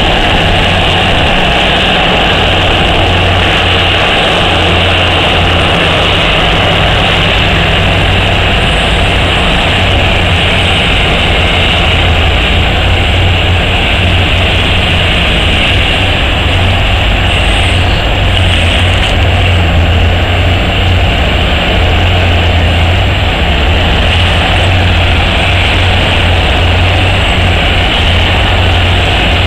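O&K RH120 E hydraulic mining shovel's diesel engines running in a loud, steady drone with a deep low hum as the machine digs.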